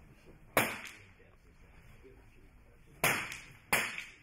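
.22 calibre free pistols firing three single shots on the line: one about half a second in, then two close together near the end, a little over half a second apart. Each crack trails off in a short echo.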